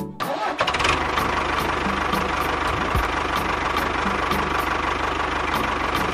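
An engine starting up, then running steadily.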